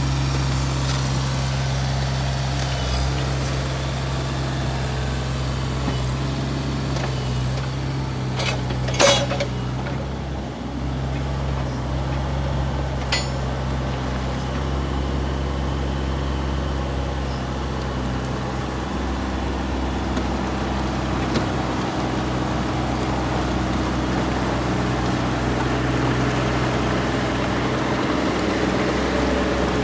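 Bobcat E32 mini excavator's diesel engine running steadily while the machine is operated. Sharp metallic clinks sound about nine seconds in and again a few seconds later.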